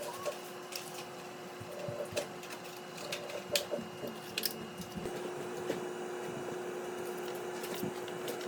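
A spoon scoops thick, wet batter into cupcake liners: soft squishing with scattered light clicks and taps of the spoon against the liners and tray, over a steady hum.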